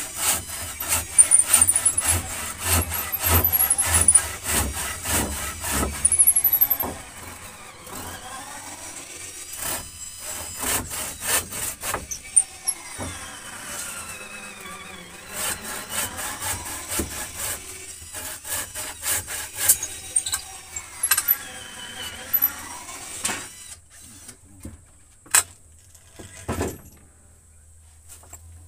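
Wood being worked with hand tools during hut building: rapid, dense strokes for about seven seconds, then slower, scattered strokes and knocks, with two sharp knocks near the end.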